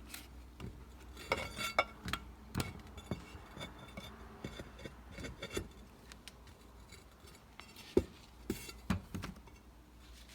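Scattered light metallic clinks and knocks as the two aluminum closing-wheel halves are handled and lined up; the sharpest knock comes about eight seconds in.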